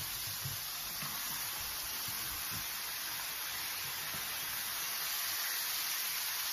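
Hot oil sizzling steadily around a whole chicken shallow-frying in a pan as its skin crisps and browns.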